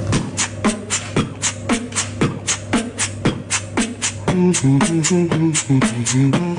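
Human beatboxing: an even rhythm of sharp mouth clicks and low kick-like strokes, about four a second. About four seconds in, a hummed bass line that steps up and down joins the beat, voiced at the same time.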